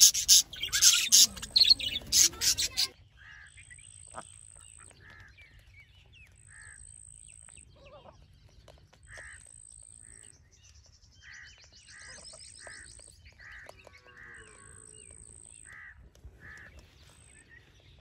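A flock of budgerigars chirping and chattering loudly, which stops abruptly about three seconds in. After that come faint short bird calls repeated about once a second, with a brief trill in the middle.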